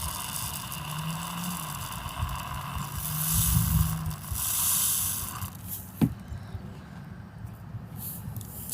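Filling being poured from a plastic water bottle into a balloon: a steady rushing, scraping sound that thins out after about five seconds, with one sharp click about six seconds in.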